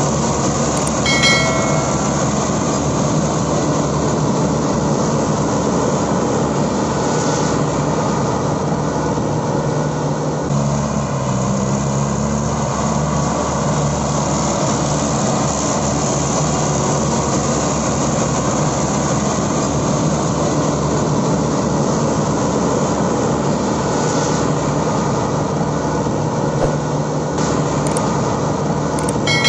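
A steady, unbroken engine drone: a tractor engine sound laid over the string-pulled toy tractors. A short chime from the subscribe-button animation sounds about a second in.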